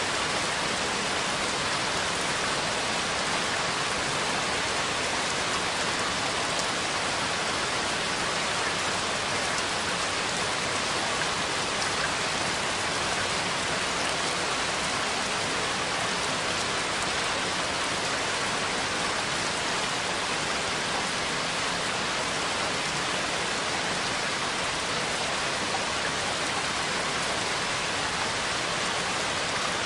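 Steady rain, an even hiss of dense drops with faint scattered ticks of single drops.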